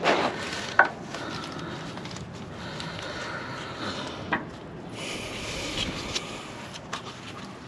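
Hand tools working on the starter bolts under a truck: scattered light clinks and scrapes of metal, with a sharp click about a second in and another about four seconds in.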